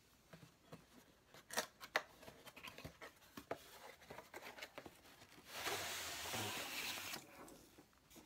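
Cardboard tripod box handled and opened by hand: sharp taps and clicks as the end flap is worked open, then a steady scraping rush of about a second and a half as the padded tripod bag slides out of the box.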